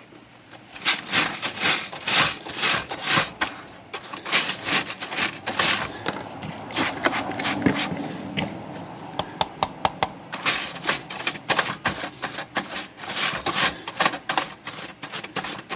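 Stiff bristle brush scrubbing the wet plastic key tops of a Royal Futura 800 typewriter in quick, repeated hissy strokes, to strip off a white coating. The strokes begin about a second in and go on in runs, some short and sharp, with the keys lightly rattling.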